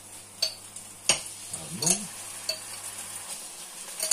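Tablespoons of tomato sauce going into a frying pan of fried onion, garlic and flour. A spoon knocks sharply against the pan about five times over a light, steady sizzle.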